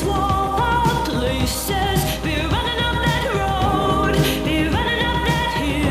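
Pop song with a singing voice over a steady beat, used as background music.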